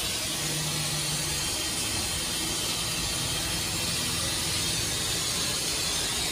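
A steady hiss, with a faint low hum about half a second in that fades a second later.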